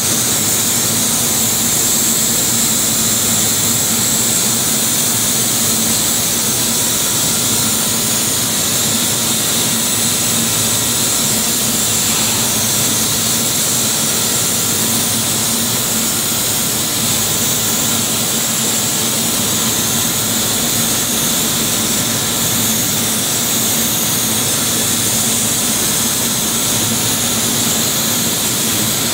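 Steady, unbroken industrial machinery noise: a loud hissing roar over a low hum, with a few faint steady tones.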